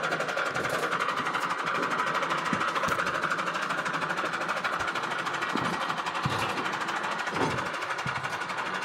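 Tractor diesel engine running hard with a fast, steady clatter as it hauls a trolley up a steep, muddy track.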